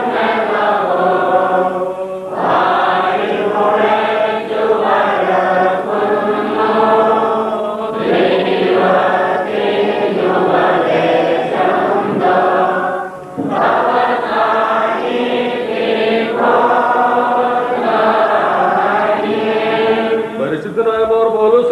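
Men's voices chanting a hymn of the Holy Qurbana liturgy through a microphone, in long sung phrases with a short break every five or six seconds.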